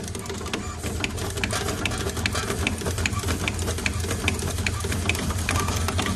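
Four-head automatic component insertion machine running, its insertion heads clacking in a regular rhythm of about two to three strokes a second over a steady machine hum.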